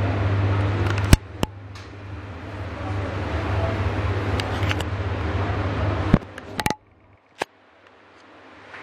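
National FV-25TGU1 10-inch ceiling exhaust fan running with a steady motor hum. A sharp click about a second in drops the sound, which then builds back up. More clicks around six seconds bring it to near silence, and it starts to rise again near the end.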